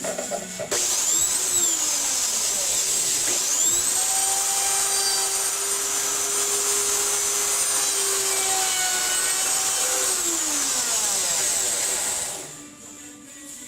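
Electric power tool motor, briefly triggered so it whines up and drops back, then run up again to a steady high whine for about six seconds before winding down.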